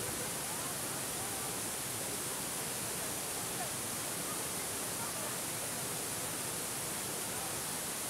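Steady, even rush of a waterfall, with faint voices of people now and then.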